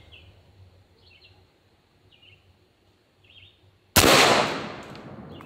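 A .72-calibre Zeus big-bore PCP air rifle firing a single 525-grain hollow-point slug about four seconds in: one sharp, loud report that trails off over about a second. Faint bird chirps before the shot.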